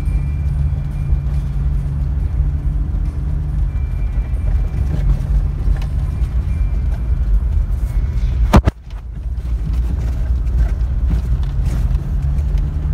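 Steady engine and road rumble heard inside the cabin of a vehicle driving on a dirt road. A single loud, sharp bang cuts in about two-thirds of the way through, and the rumble dips briefly after it.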